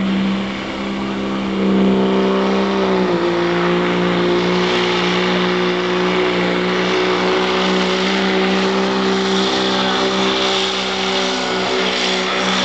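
Dodge Ram's 5.9-litre inline-six Cummins turbo-diesel running at full throttle under load while pulling a weighted sled. Its pitch drops a little about three seconds in, then holds steady.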